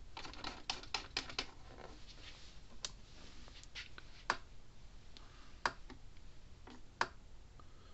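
Parmak Rangemaster electric fence charger pulsing: a sharp single tick about every second and a half, starting about three seconds in, as the charger fires into a fence tester. A few lighter handling clicks come in the first second and a half.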